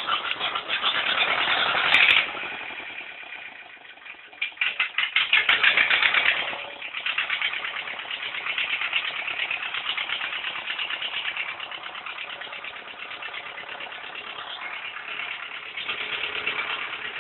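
Ursus C-335 tractor's two-cylinder diesel engine starting from cold. A first burst of cranking cuts off about two seconds in. The starter cranks again around four seconds, and the engine catches near seven seconds and settles into a steady idle.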